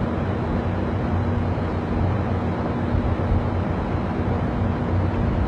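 Steady ship machinery noise: a constant low rumble with a steady hum above it, unchanging throughout.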